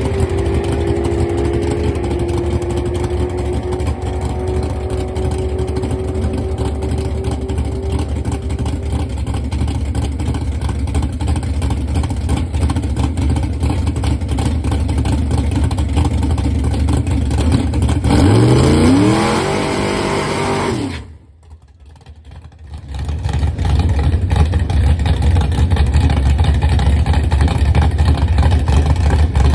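A Chevrolet Cavalier drag car's engine running at idle. About 18 seconds in it revs up in a rising sweep, then the sound drops out for about two seconds before the idle picks up again.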